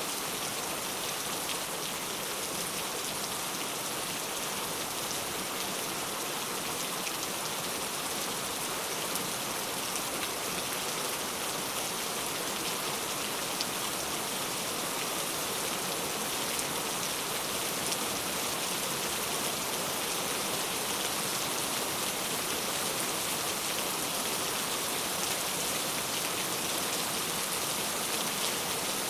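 Heavy rain falling steadily, a dense even hiss with fine drop patter and no let-up.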